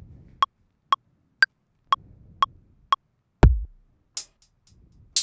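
Ableton Live's metronome clicking about twice a second, with a higher-pitched click every fourth beat. It then stops and electronic drum-rack sounds are played from a MIDI keyboard: a deep kick drum about three and a half seconds in, followed by a short hissy hit and a sharper hit near the end.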